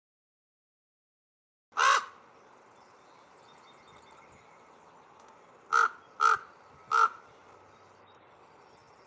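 Recorded common raven calls: one loud call, then a group of three close together about four seconds later, over the faint steady hiss of the field recording.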